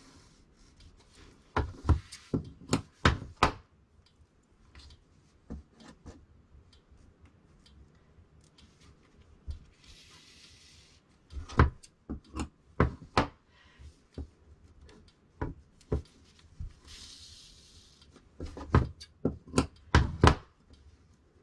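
Sharp clicks and knocks in three quick clusters, about two seconds in, about twelve seconds in and near the end, with two short rustles between them, from hands handling cut fabric pieces, thread and tools on a worktable.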